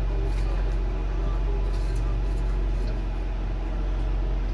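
Steady low hum of the Snobear's engine idling, heard inside the closed cabin, with a few faint light ticks over it.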